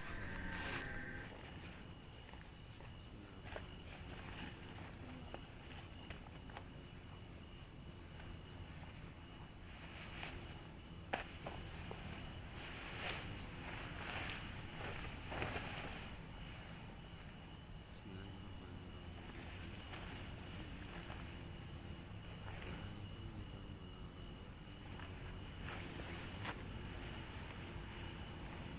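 Night insects such as crickets chirping steadily in high, pulsing trills. Scattered soft knocks and rustles are heard, with one sharp click about eleven seconds in.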